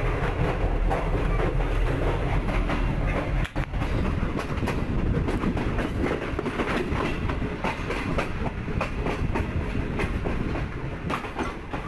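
Passenger coach of a moving express train, its wheels clacking over junction points and rail joints, heard at the open door. A steady low hum fades about three and a half seconds in, and the clatter comes through more openly after that.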